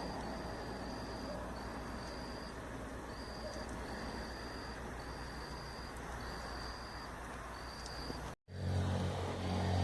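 Cricket trilling in repeated high-pitched pulses, each about half a second to a second long, over a steady background hiss. About eight seconds in, the sound cuts out for a moment, then a low engine drone comes in.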